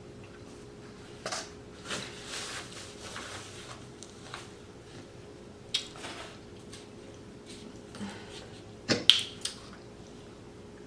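Close-up eating sounds: chewing with scattered clicks and taps, the loudest a quick cluster of sharp clicks about nine seconds in.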